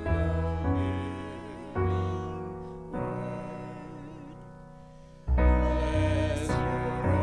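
Slow, hymn-like music: piano chords struck every second or so and left to fade, with a wavering, held melody line over them. Fuller bass chords come in about five seconds in.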